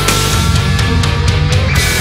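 Loud, aggressive heavy rock music.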